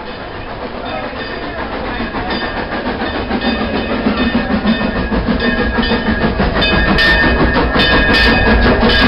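Narrow-gauge steam locomotive pulling into the station, growing steadily louder as it draws near. From about halfway there is a fast, even run of clicks and clanks.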